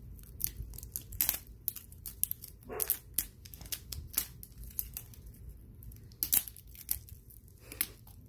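Printed wrapper being peeled and torn off a plastic mystery egg, a run of crinkling, tearing crackles.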